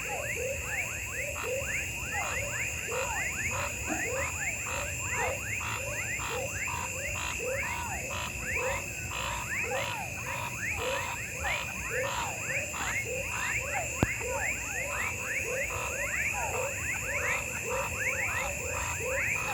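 Amazon rainforest night chorus: many frogs calling over and over in quick notes that drop in pitch, with lower notes repeating about twice a second, over a steady high-pitched drone. A single sharp click late on.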